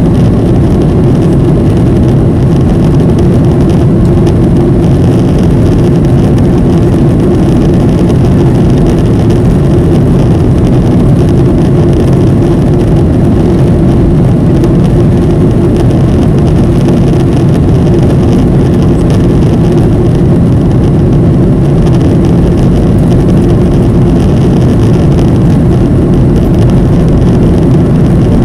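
Steady cabin drone of a Boeing 737 in flight: engine and airflow noise heard from inside the cabin, with a constant low hum running through it.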